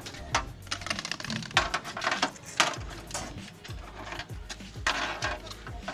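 Irregular clicks, taps and knocks of hard parts being handled during a TV repair.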